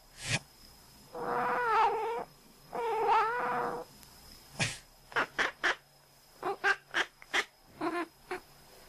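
A cat vocalizing: two long, wavering meows, each about a second long, then a quick run of short squeaky calls in the second half.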